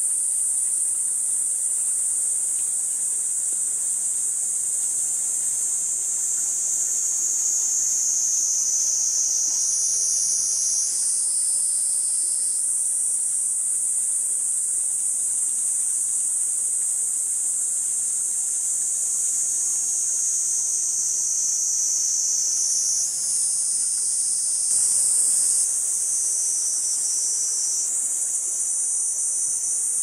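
Kaempfer cicada (niiniizemi) singing: a continuous, high-pitched buzzing drone with no breaks, its pitch shifting slightly a few times.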